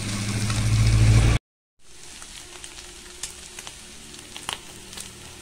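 Mutton pieces sizzling as they fry dry in oil in a non-stick kadai, stirred with a metal slotted spoon that clicks against the pan now and then. A low hum grows louder over the first second and a half, then the sound cuts off abruptly; after a short gap the sizzling resumes, quieter.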